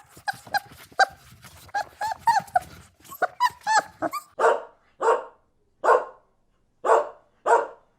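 Puppy yipping in quick, short, high calls that rise and fall in pitch, then barking five times at about one bark a second in the second half.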